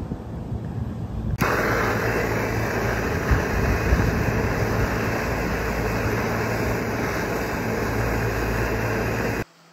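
Handheld torch flame hissing steadily as it heats an aluminum microchannel condenser coil for an Alloy Sol repair. The hiss starts abruptly about a second and a half in and cuts off just before the end, with a low wind rumble before it.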